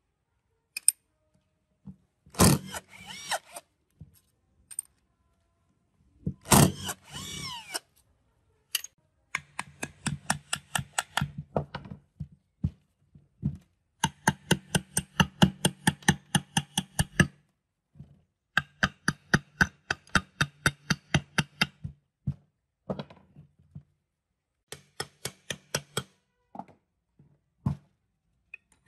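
Hammer striking a chisel held against a small generator engine's rusty crankcase, in runs of rapid metallic strikes about five a second with short pauses between. Two short bursts from a cordless drill/driver come earlier, about two and six seconds in.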